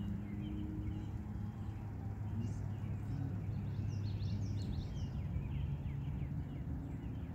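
Birds chirping, with a cluster of quick high calls in the middle, over a steady low hum.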